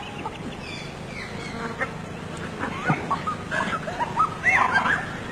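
Many short, squeaky animal calls, overlapping and coming fast, loudest in the second half.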